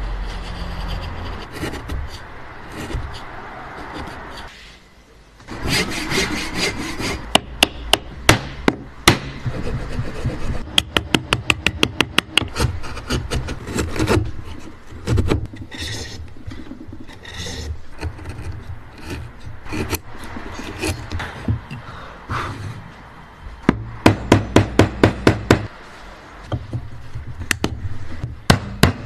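Hand woodworking with a chisel: the blade scraping and paring across wood, broken by runs of quick, even mallet strikes on the chisel as it chops into the wood, about four or five a second.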